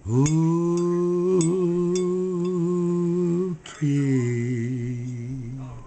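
A man singing unaccompanied, holding one long steady note for about three seconds, then after a quick breath holding a second, lower note for about two seconds.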